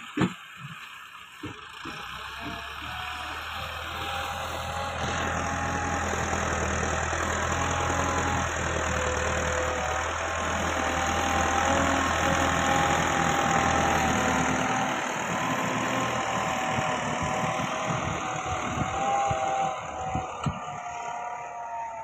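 Massey Ferguson 385 tractor's four-cylinder diesel engine running under load as it works loose soil, with a whine over the engine note. It grows louder toward the middle as the tractor passes close, then eases off. A sharp thump comes right at the start.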